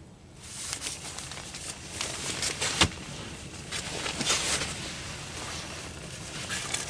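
Rustling and handling of a nylon tent stuff sack and the pack's fabric as gear is stowed and the main compartment is opened, with one sharp click about three seconds in.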